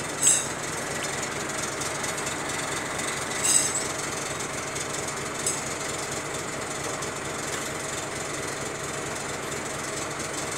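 An engine running steadily with a fast, even knocking pulse. It is broken by three brief, sharp, high-pitched sounds: one right at the start, a louder one about three and a half seconds in, and a faint one a couple of seconds later.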